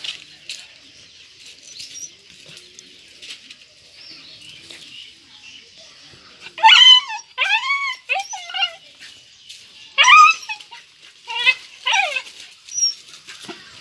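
A dog whining in a run of short, high-pitched, wavering cries, about seven of them, starting about halfway through, over a steady high hiss.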